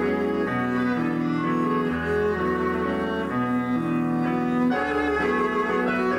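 Live chamber-rock music: two bowed violin-family strings play long sustained notes in harmony over a low bass line, the chords shifting every second or so.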